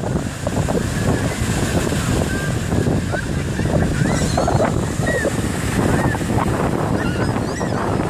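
Waves breaking and washing up a sandy beach, with strong wind buffeting the microphone. Short high-pitched voices of people in the surf call out now and then.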